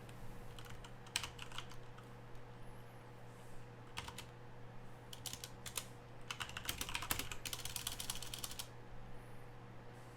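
Typing on a computer keyboard in short bursts of keystrokes, with the longest fast run about two-thirds of the way through.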